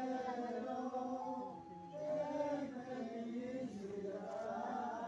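A group of voices singing a slow religious song together, in phrases of long held notes with overlapping lines.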